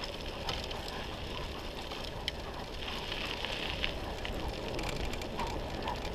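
Wheels of a dog-drawn rig rolling fast over a dirt road, a steady rough noise with a few light clicks and rattles, with wind on the microphone.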